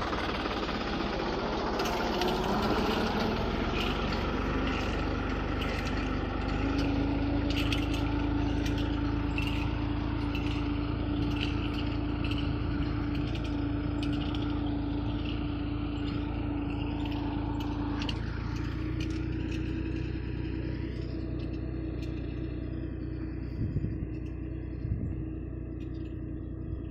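Tractor engine running steadily while pulling a zero-till seed drill, its pitch rising over the first few seconds and then holding. Scattered rattling clicks over most of the stretch, easing off in the last third.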